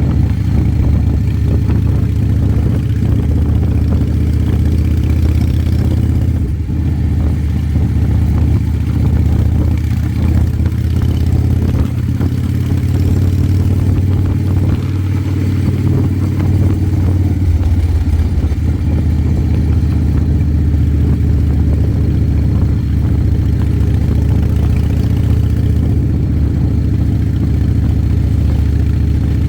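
Ford Powerstroke diesel engine running steadily under way, a low drone heard while driving, shifting slightly in pitch a couple of times.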